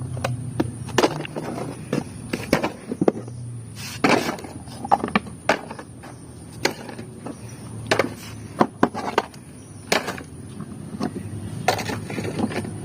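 Irregular knocks and clatters of plastic toy vehicles being handled and gathered together, one hard tap after another at uneven intervals.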